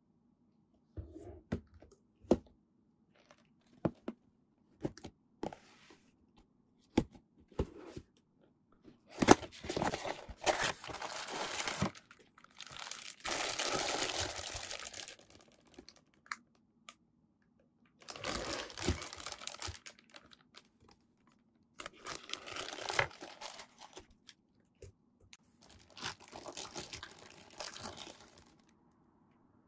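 Sharp clicks and knocks of a cardboard figure box being handled and opened, then clear plastic packaging bags crinkling and rustling in several long bursts as the bagged figure parts are pulled out and unwrapped.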